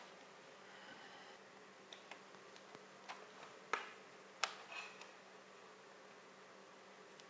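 Faint steady hum with a handful of light clicks and taps, the two sharpest close together near the middle.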